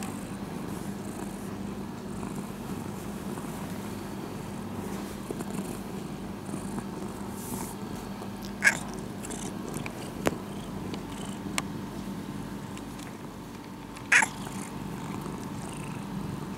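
Domestic cat purring steadily close up. Two brief, louder sounds break in, one about halfway through and one near the end.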